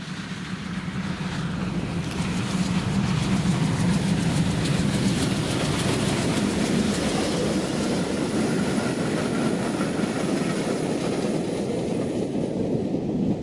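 TKt48 steam tank locomotive and its train of old passenger coaches passing close by. The sound builds over the first few seconds as the engine draws near, then the coaches' wheels run on the rails with a steady rolling noise as they go past.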